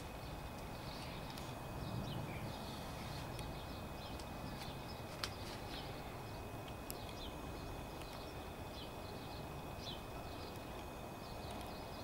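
Garden ambience: small birds chirping and twittering over a steady background hiss, with a couple of sharp clicks partway through.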